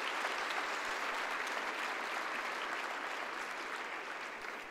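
Large audience applauding, a dense steady clapping that slowly dies away near the end.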